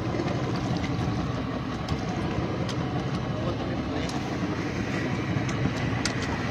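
Steady rumble of a small fishing boat's motor, with a few faint clicks.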